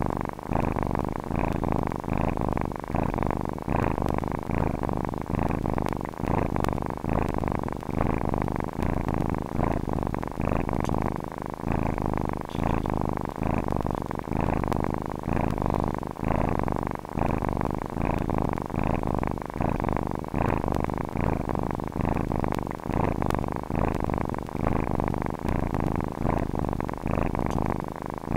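Domestic cat purring steadily, the purr swelling and easing in an even, regular rhythm with each breath.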